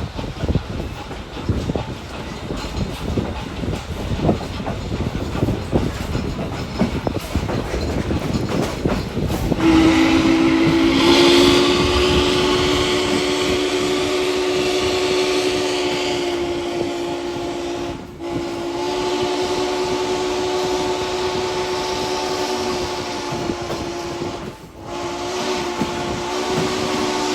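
A moving train rumbles and clatters over the rails. About ten seconds in, the whistle of steam locomotive 1309 starts a long blast of several notes sounding together, broken twice by brief gaps.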